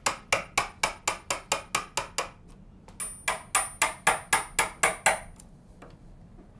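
Hammer tapping a wood chisel lightly and quickly, about four taps a second, in two runs of about two seconds with a short pause between, with a thin high ring on the second run. The chisel is cutting the shallow recess for a mortise lockset's faceplate into the door edge, kept gentle so the edge doesn't split.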